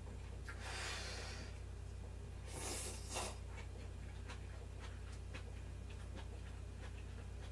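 Someone eating from a wooden bowl of miso soup: two short slurps, about a second and three seconds in, over many small clicks of chopsticks and chewing.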